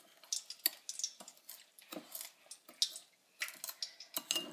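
Metal spoon clinking and scraping against a ceramic bowl in quick, irregular strokes, mashing orange zest into sugar.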